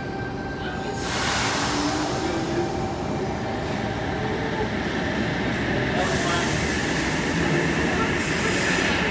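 Sydney Trains Waratah electric train pulling out of an underground platform. The running noise builds about a second in, with a faint whine rising in pitch as the train gathers speed.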